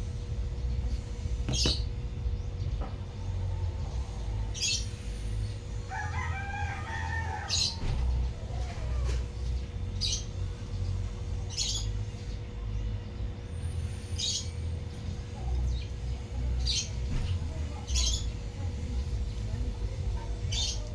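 A rooster crows once, about six seconds in, while short high bird chirps come every second or two over a steady low rumble and a constant faint whine.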